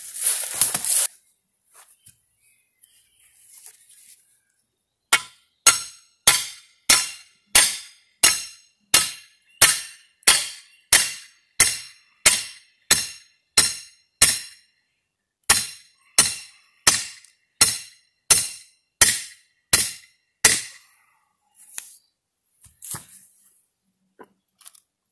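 Nearly thirty hammer blows on a metal fence post, about two a second, each a sharp clank with a short ring, with a brief pause about two-thirds of the way through.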